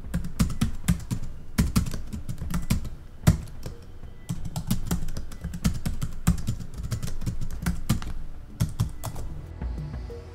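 Typing sound effect: a rapid run of keystroke clicks that pauses briefly about a third of the way in and again near the end.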